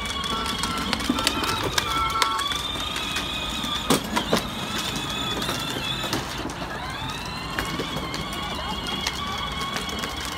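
Child-sized battery-powered ride-on ATV, its electric motor and gearbox giving a steady high whine that dips in pitch and comes back up about six and a half seconds in, as it slows and picks up speed again. Two sharp knocks come around four seconds in.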